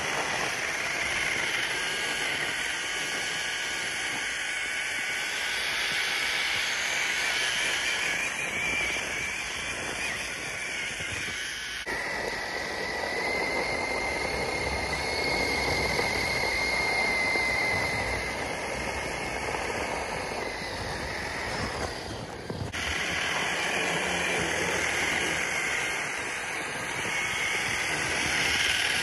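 Traxxas TRX-4 RC crawler's Fusion Pro 2300kv brushless motor on 2S whining steadily under load, with its drivetrain running as the tyres churn through dry snow in a constant hissing rush. The sound breaks off abruptly twice where the footage cuts.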